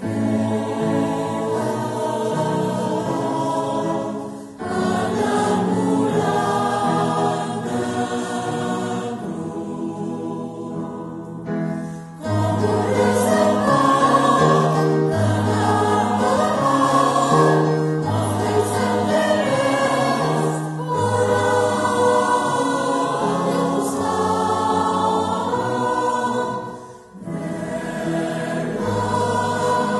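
Choir singing a slow hymn in Catalan, long held notes in phrases with short breaks between them.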